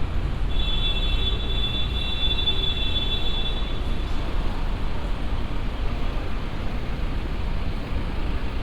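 Steady low rumble of city traffic. A high-pitched squeal of several tones runs from about half a second in for roughly three seconds, then stops.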